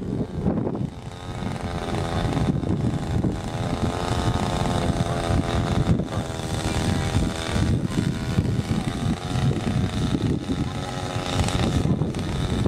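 An engine running at a steady speed, its pitch holding with slight wavering.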